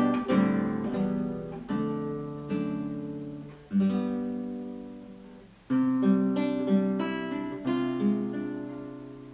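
Acoustic guitar playing slow strummed chords, each struck and left to ring out. The last chord fades away near the end.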